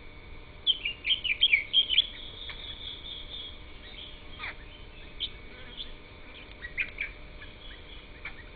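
Wild birds chirping: a rapid run of high, loud notes about a second in, then scattered single chirps and short downward-sweeping calls.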